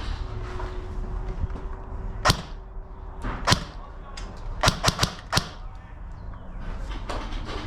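Airsoft gun firing single shots: six sharp clacks, two about a second apart and then a quick run of four in under a second, over a steady low rumble.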